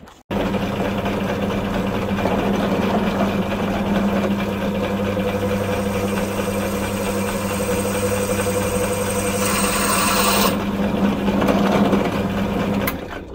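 Benchtop drill press running with a steady motor hum as its bit drills through a small piece of graphite. It starts abruptly, has a brief harsher, hissier stretch about nine and a half seconds in, and drops away just before the end.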